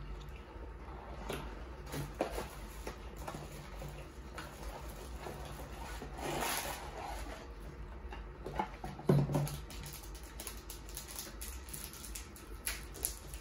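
Cardboard trading-card box being opened and its contents handled: scattered light rustling, scraping and clicking, with a louder stretch of rustling about six seconds in and a short bump just after nine seconds.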